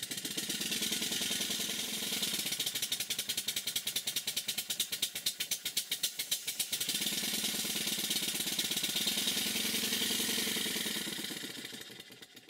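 Model steam beam engine running, its exhaust and moving parts making rapid, even beats. The connecting-rod fork has just been shimmed to stop its side-to-side click on the beam. The beat dies away near the end.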